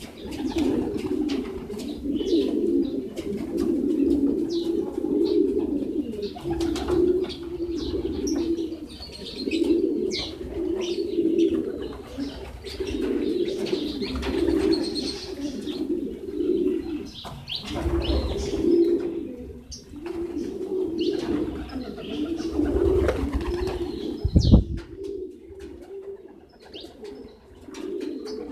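A flock of racing pigeons cooing steadily, many calls overlapping, with scattered sharp ticks of beaks pecking grain on concrete. One low thump about 24 seconds in.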